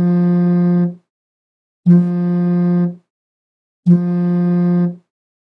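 A low electronic tone, steady in pitch, sounding three times: each lasts about a second, with a second's gap between.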